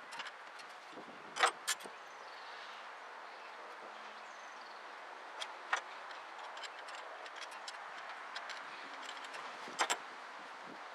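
Scattered clicks and knocks of hand tools on the carburetor of a 1964 Ford F100 as it is unbolted and taken off, over a steady low hiss. The sharpest knocks come in pairs, about a second and a half in and again near the end.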